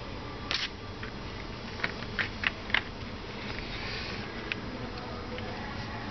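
Light clicks and taps of small plastic and metal jigsaw parts and a pair of tweezers being handled during disassembly. There are about six short clicks, most of them close together around two to three seconds in.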